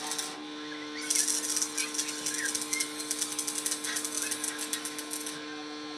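Electric arc welding on steel: the arc crackles and sizzles, stops for a moment about half a second in, strikes again a second in, and breaks off again near the end. A steady hum runs underneath.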